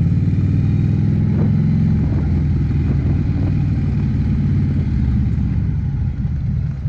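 Harley-Davidson V-twin motorcycle engine running steadily while riding, its pitch easing down a little about two seconds in.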